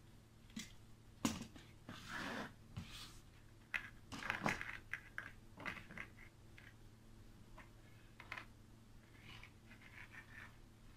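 Faint clicks and scraping from hands handling a plastic straw, fishing line, hooks and a utility knife on a tabletop. The noises come in clusters in the first half, with a few more near the end.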